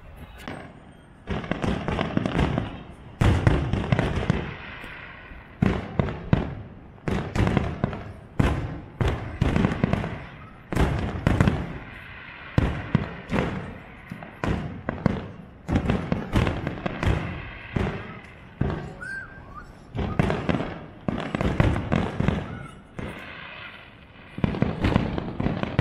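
Aerial fireworks shells bursting in a rapid, irregular string of bangs, often overlapping, each trailing off in echo.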